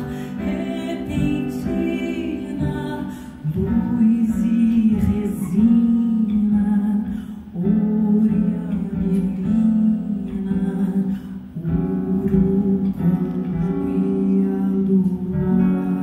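A woman singing over acoustic guitar accompaniment, the voice holding long notes above plucked chords.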